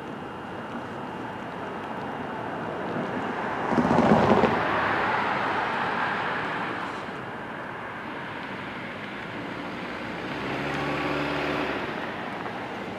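Horn of an NJ Transit ALP-46A electric locomotive sounding in the distance for about two seconds near the end, a steady chord of several notes, over a steady rushing background. A loud burst of rushing noise about four seconds in.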